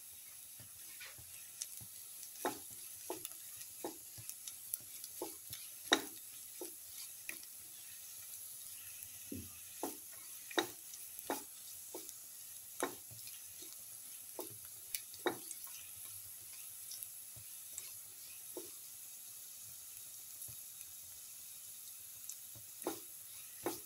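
Sliced shallots and ginger frying in oil in a steel pan, sizzling steadily, while a spatula scrapes and taps against the pan at irregular moments.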